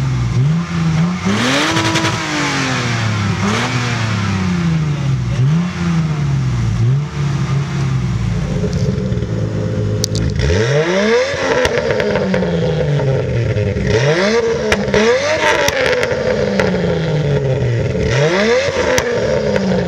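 Lexus SC300 and IS300, each with a 3.0-litre 2JZ-GE inline-six, revved repeatedly while standing. Each blip climbs quickly in pitch and then falls slowly back to idle. In the second half, a few sharp pops or crackles come from the exhaust as the revs drop.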